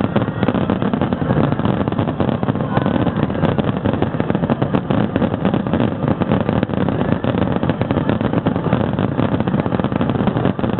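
Fireworks finale barrage: a dense, unbroken run of rapid bursts and crackle from a wide line of shells and ground-level 'ground-splitting' fireworks, merging into a continuous heavy rumble.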